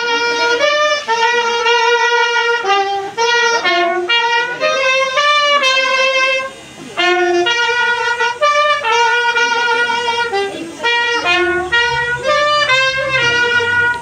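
A solo brass-like wind instrument playing a slow melody of long held notes, breaking off briefly about halfway through and stopping at the end.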